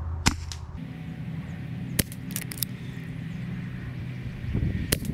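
Brocock Atomic XR PCP air pistol/carbine firing three shots, each a sharp crack: about a third of a second in, about two seconds in, and near the end. A few lighter clicks follow the second shot.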